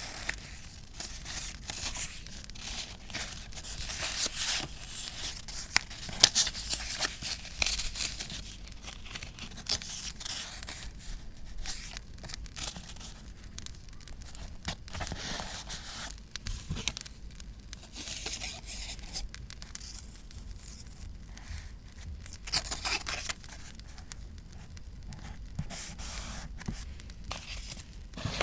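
Paper being torn and crinkled by hand in irregular short rips and rustles, with a busier stretch a few seconds in and another later on.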